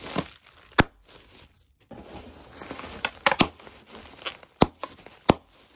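Plastic bubble wrap crinkling as it is squeezed and pulled in the hands, with several sharp pops, the loudest near the middle and end.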